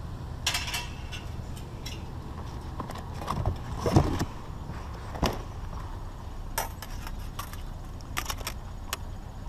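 Steady low vehicle hum with scattered rattles, clicks and knocks, the loudest a knock about four seconds in.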